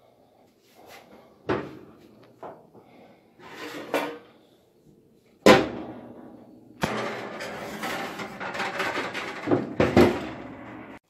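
Oven door and metal baking sheet clanking as the sheet is handled at the open oven: separate knocks about 1.5 and 4 s in, a loud clank about 5.5 s in, then steady scraping and rattling with two more knocks near the end.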